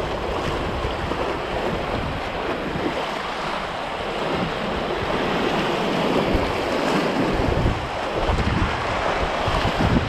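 River water rushing through rough, choppy rapids around a paddleboard, a steady hiss, with wind buffeting the microphone in uneven low rumbles.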